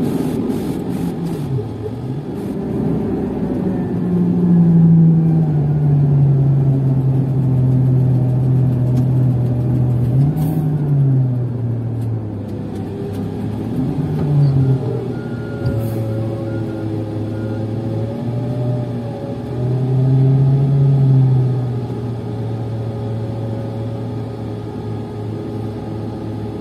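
Diesel engine of a SANY STC800S 80-tonne mobile crane, heard from inside the cab while driving. The engine note rises and falls several times as it accelerates and eases off, then settles to a lower steady note near the end.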